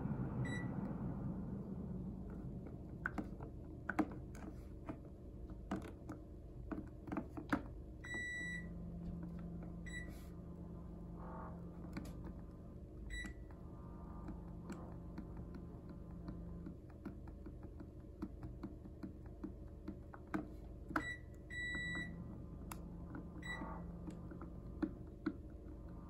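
Remote-control buttons clicking while a Panasonic CS-257CF-W room air conditioner answers with short electronic beeps, about seven in all, two of them longer, as its on/off timer is being set.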